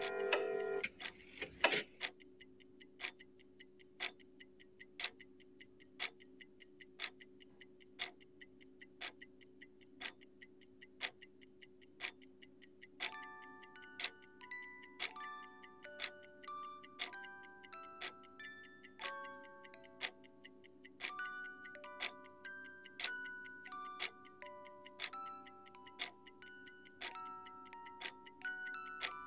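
Clock ticking steadily, about once a second, over a low sustained drone, with a sharp click near the start. About halfway through, a slow melody of short high notes joins the ticking.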